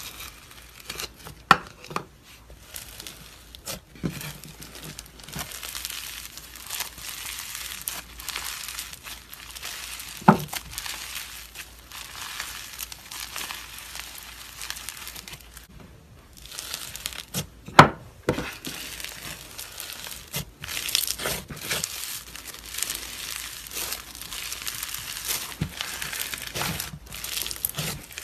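Hands squishing, stretching and tearing a fluffy, textured slime: a steady crackling and crinkling, with a few sharp snaps along the way.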